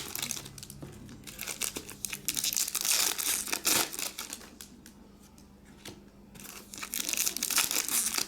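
Trading-card pack wrappers being torn open and crinkled, in irregular spells of rustling with a quieter stretch in the middle.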